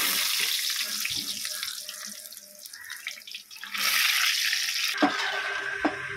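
Medu vadas deep-frying in a large kadai of hot oil: a steady sizzling hiss of bubbling oil, dropping away briefly midway and then loud again. Near the end a steady tone and two sharp clicks come in.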